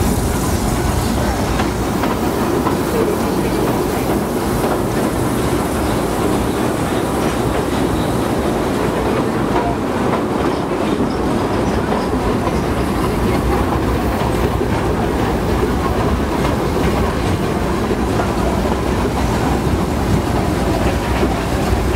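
Small steam train running along the track, heard from an open passenger car behind the locomotive: a steady rumble with the clatter of wheels on the rails.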